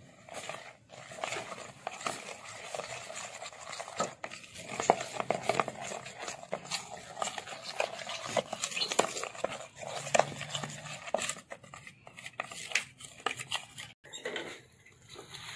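Metal spoon stirring a thick, wet spice paste in a bowl, with irregular clinks and scrapes of the spoon against the bowl's sides.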